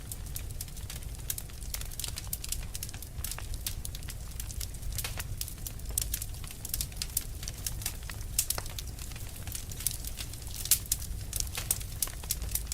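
Wood fire burning with a steady low rumble and irregular crackling and popping, a few pops louder than the rest.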